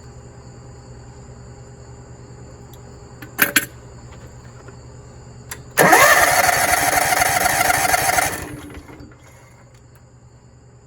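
A propane floor buffer's small engine is cranked over by its starter for about two and a half seconds, a rising whine as it spins up, then cuts off without running. The owner puts the no-start down to the propane regulator getting no vacuum pulse. About a second and a half before it there are two sharp clicks.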